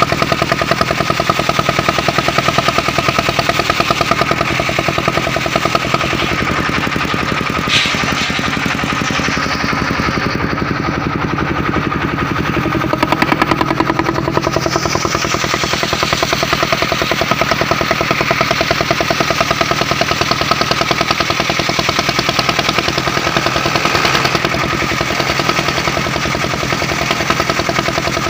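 Engine-driven portable circular sawmill running steadily, its engine chugging in rapid, even pulses under a steady whine. A single sharp knock comes about eight seconds in.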